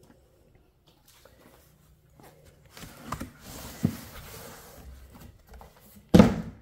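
Cardboard shipping box being opened: rustling and scraping of the cardboard lid and flaps with a few sharp taps, then a single loud thump near the end.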